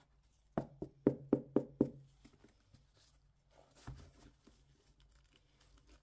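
A quick run of about six sharp knocks, then a single softer knock near four seconds in, from gloved hands handling a sneaker and its foam insole.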